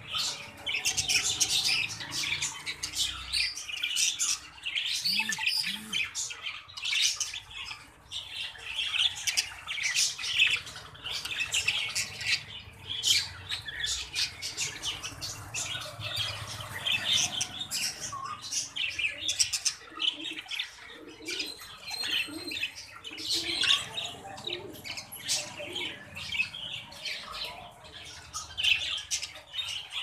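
Budgerigars chattering: a continuous run of short, rapid, high chirps and warbling squawks.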